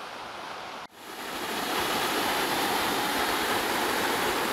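River rapids rushing, a steady even noise of fast-flowing water. After a brief break about a second in, it comes back louder, builds for about a second, then holds steady.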